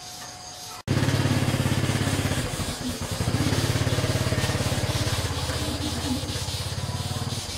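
A small engine idling: a loud, steady low drone with a fast, even pulse. It starts abruptly about a second in and stops shortly before the end.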